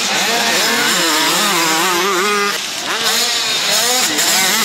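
Motocross bike engines revving hard, their pitch rising and falling again and again with the throttle as the bikes take a jump. Loudness dips briefly about two and a half seconds in.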